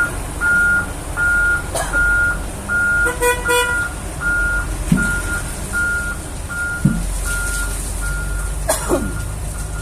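Heavy-equipment reversing alarm beeping evenly, about three beeps every two seconds, over a running engine's low rumble. A short horn toot sounds about three seconds in.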